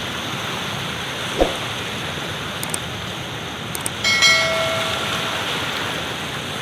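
Indus floodwater rushing steadily through the downstream side of a barrage. A short thump comes about a second and a half in, and a brief steady tone with several pitches sounds about four seconds in for a second or so.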